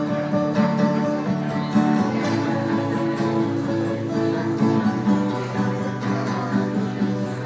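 Acoustic guitar strumming chords in an instrumental passage of a song.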